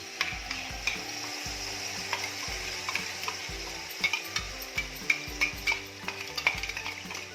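Ginger and jaggery paste sizzling as it fries in hot ghee in a pan, with a steady hiss and frequent sharp clicks and scrapes of a spoon against the pan as it is stirred.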